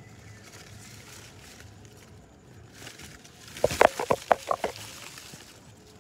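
A quick run of sharp knocks and rustles a little past halfway, from leaves and twigs brushing against the phone as it pushes into the bush; otherwise only faint background hiss.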